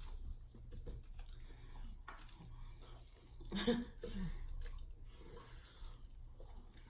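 Close-miked chewing and mouth sounds of someone eating fast food, with small wet clicks. A short murmur of voice comes a little over halfway through.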